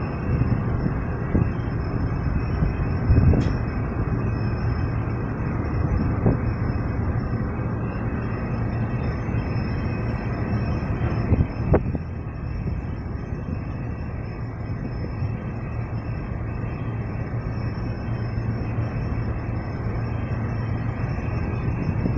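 A ship's engine and machinery running steadily as a low rumble, with a few sharp knocks, one about three seconds in and one about twelve seconds in.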